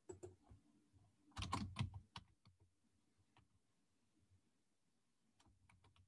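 Faint computer keyboard typing. A quick run of keystrokes comes about a second and a half in, then a few single key taps, and a few more just before the end.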